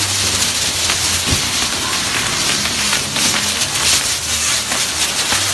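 Torito firework frame spraying sparks: a loud, steady hiss packed with rapid crackles.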